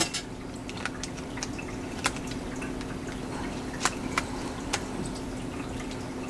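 Sharp plastic clicks and taps, about half a dozen spread out, as the HTC Raider smartphone's back cover is snapped back on and the phone is handled, over a steady low hum.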